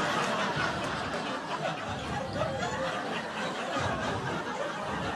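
Audience laughing, a crowd's mixed chuckles and laughter that slowly die down.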